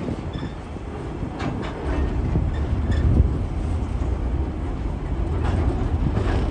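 Freight train's hopper wagons rolling past: a steady low rumble of steel wheels on the rails, with a few short, sharper clicks from the running gear.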